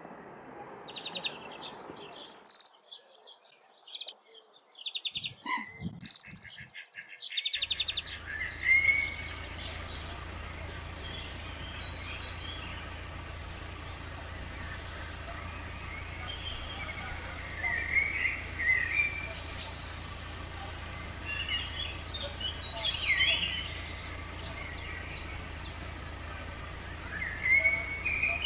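Wild birds calling and singing: first a run of sharp, rapid rattling calls and high chirps. About seven seconds in the background changes abruptly to a steady low rumble, over which scattered chirps and short warbling phrases come and go.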